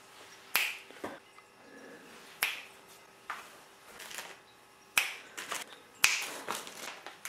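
About six sharp clicks and taps, irregularly spaced, as plastic kit parts on their sprues and a cardboard kit box are handled and set down on a wooden board.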